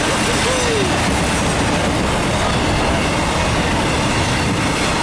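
Intermodal freight train's flatcars carrying highway trailers rolling past, with a steady loud run of steel wheels on rail. A short squealing tone from the wheels comes about half a second in.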